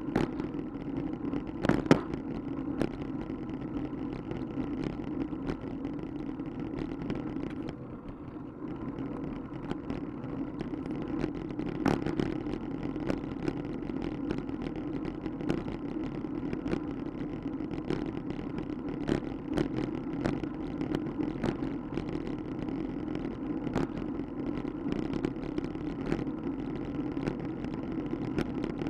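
Steady wind and road rumble from a bicycle ride over a cracked concrete path, with many sharp knocks and rattles as the wheels cross the cracks. The noise eases briefly about eight seconds in.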